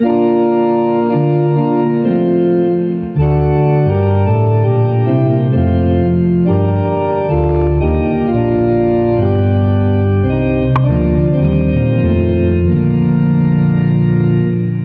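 Organ playing a slow series of held chords that change every second or so, with a short break about three seconds in and a single faint click about eleven seconds in.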